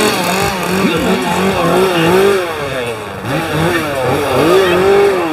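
A small engine revving up and down over and over, its pitch rising and falling in quick swoops.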